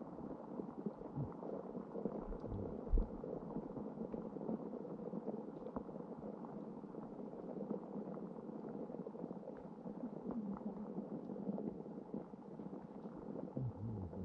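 Muffled underwater ambience heard through a GoPro's waterproof housing: a steady low hiss with scattered faint ticks and crackles, and a couple of dull low thumps in the first three seconds, the louder one about three seconds in.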